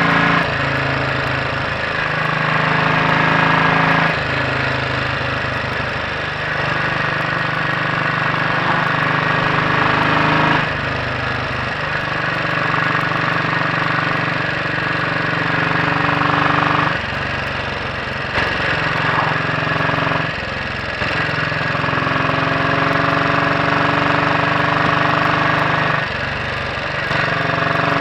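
Royal Enfield Bullet 500 single-cylinder four-stroke engine running under way on the road, its inlet cam retarded by one tooth. The engine note holds steady for stretches, then dips and picks up again several times as the throttle is eased and reopened.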